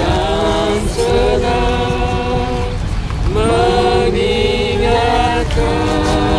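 A small group singing a song together in Indonesian, with long held notes and phrases that break and start again every second or two.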